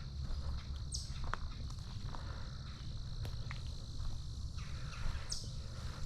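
Steady, high-pitched chorus of insects in the woods, with a low rumble underneath and two short falling chirps, one about a second in and one near the end.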